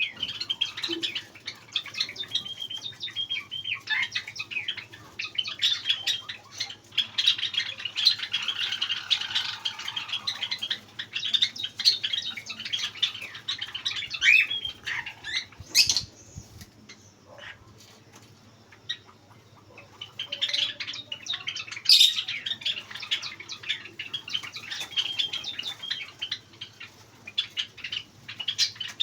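Cockatiels chirping and calling continuously, a busy chatter of short squawks and tweets that eases off for a few seconds a little past halfway, with two sharp knocks, one about halfway and one about three-quarters of the way through.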